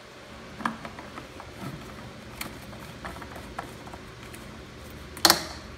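Gasoline running from a disconnected fuel line into a plastic bucket, with scattered light ticks and one sharp click near the end. The gas flows freely only with the fuel cap open, the sign of a gas cap that is not venting.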